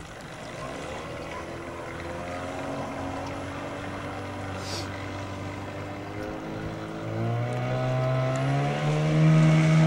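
Small tiller outboard motor on a low skiff running across open water. Its pitch rises and it grows steadily louder, most sharply in the last few seconds.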